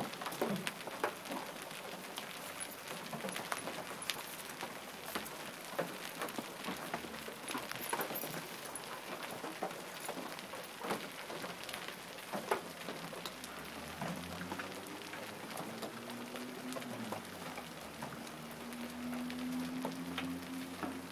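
Hailstorm with golf-ball-sized hailstones: a steady patter broken by frequent sharp knocks of single stones striking. A low, wavering tone joins in during the last third.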